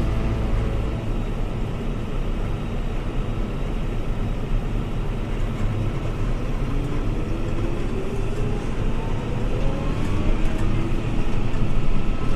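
Fendt 724 tractor's six-cylinder engine and drivetrain running steadily, with a faint whine rising in pitch in the second half as the tractor picks up speed.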